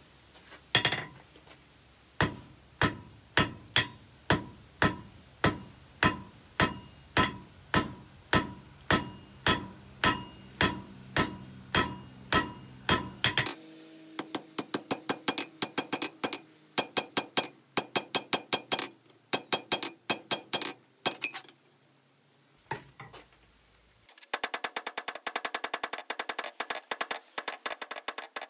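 Blacksmith's hand hammer striking a red-hot steel bar on an anvil as the bar is drawn out to a point, the anvil ringing after each blow. At first the blows are steady, about one and a half a second. They then come quicker and less even, break off briefly, and near the end give way to a fast run of light taps.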